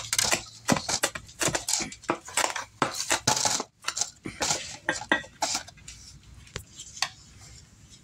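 Kitchen knife chopping fresh thyme on a cutting board: irregular knocks and clicks, busy for the first five seconds or so, then only a few scattered taps near the end.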